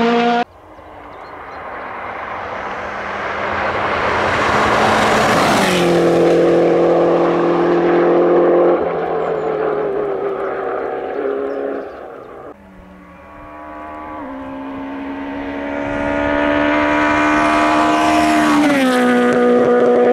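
Two rally cars passing at speed one after the other. Each engine note climbs as the car approaches, drops sharply in pitch as it goes by, then holds high revs as the car pulls away up the road.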